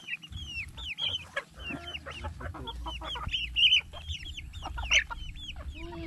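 A flock of young black chickens peeping and clucking, many short falling chirps overlapping one another.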